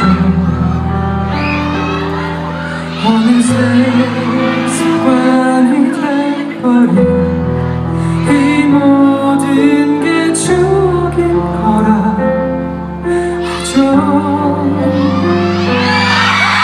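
Instrumental intro of a slow pop ballad played loud over a concert hall's sound system: held chords over a bass note that changes every few seconds. Fans' high screams rise over it near the end.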